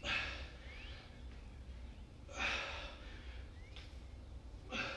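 A man breathing hard, winded from a high-intensity interval: three heavy, breathy exhalations about two and a half seconds apart.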